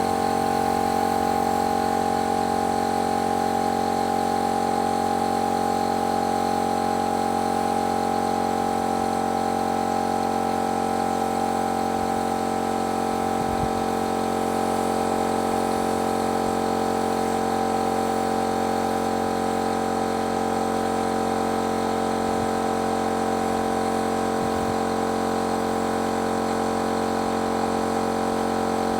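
Spray-painting machine running steadily, an even constant hum that does not change.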